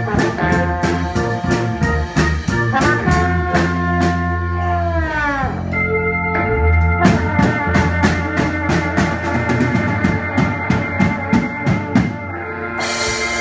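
Horns and a drum kit playing jazzy music: held brass notes over steady cymbal strokes, about three a second. About five seconds in the horns slide down together, then come back on a new held chord, with a cymbal crash near the end.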